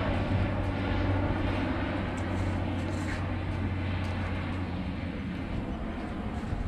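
Aircraft engine droning overhead, a steady low hum that slowly fades.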